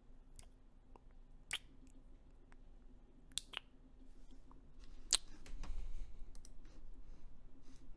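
A handful of sharp, close clicks scattered a second or two apart, with a low rustle a little past the middle.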